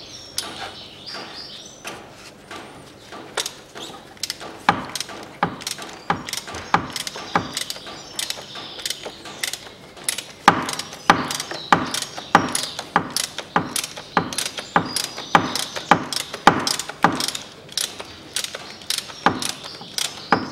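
Socket ratchet wrench with a 27 mm socket clicking over and over as it unscrews the oil filter housing cap on a Peugeot 1.6 petrol engine. The clicks grow louder from about halfway, at about two a second.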